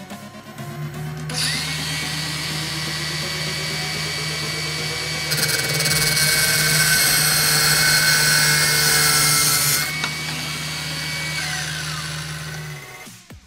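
A drill press motor spins up and runs steadily, turning a hex drill bit in its chuck, and an angle grinder starts with a steady whine a moment later. From about five to ten seconds in the grinder disc is held against the spinning steel bit, a loud harsh grinding hiss, as the bit's tip is ground down for a center punch. The grinder then winds down and the drill press stops just before the end.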